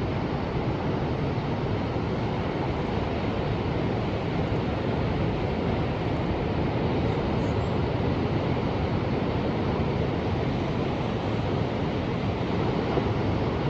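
Ocean surf: a steady, unbroken rush of waves.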